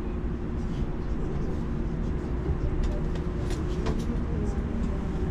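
Local commuter train heard from inside the carriage: a steady low rumble and hum, with a few faint clicks about three and a half to four seconds in.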